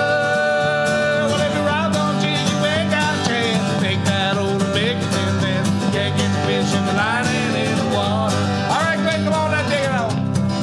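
A song with acoustic guitars strumming under singing voices; twice, late on, the singer slides up into a long held note.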